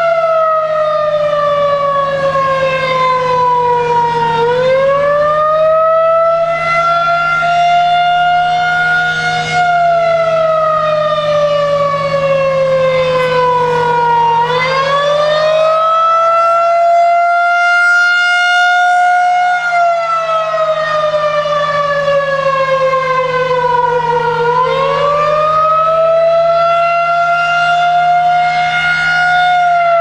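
Federal Signal 2001-SRN rotating electromechanical warning siren sounding the attack signal: a loud wail that rises for about five seconds and falls for about five, over and over, with a steady low hum underneath.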